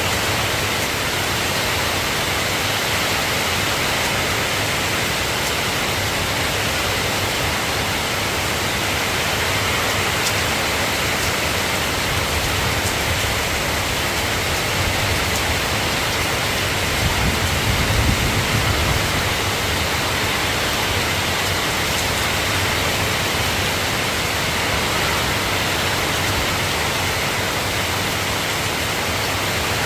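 Steady rain falling as an even hiss. A brief low rumble swells and fades about two-thirds of the way through.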